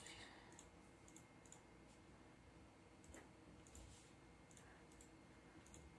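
Faint computer mouse clicks, a scattered handful of short, irregular taps over near-silent room tone.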